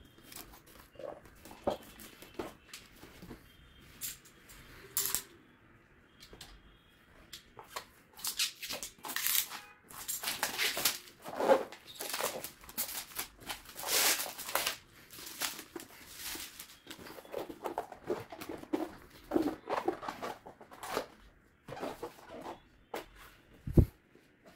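Plastic shrink-wrap being torn and crinkled off a cardboard box, then the cardboard flaps handled, in irregular rustling bursts, with a single thump near the end.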